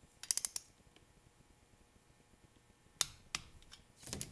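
Ratcheting torque wrench clicking on the valve-adjuster lock nut of a 1985 Honda XR600: a quick run of about five clicks near the start, then a sharper click about three seconds in, followed by a few lighter metal clicks.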